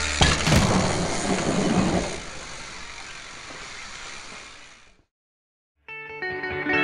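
Live sound of a BMX bike landing a dirt jump with a sharp knock, then rolling over the dirt, the noise fading away over a few seconds. After a moment of silence, rock music starts near the end.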